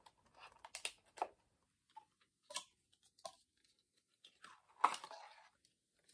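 Cardboard hand cream box being opened by hand: small clicks and crinkles as the top flap is worked open, then a longer scraping rustle about five seconds in as the tube slides out of the carton.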